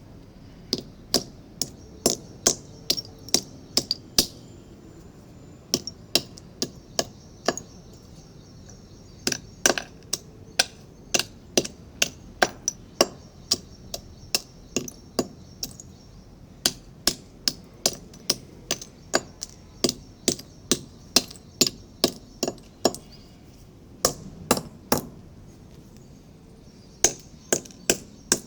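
Clay pot being broken: dozens of sharp cracks and knocks, often in quick runs of two to four, with a few short pauses between runs.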